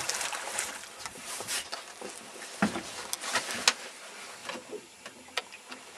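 Water lapping and splashing against the side of a small fishing boat, with a few short sharp clicks around the middle.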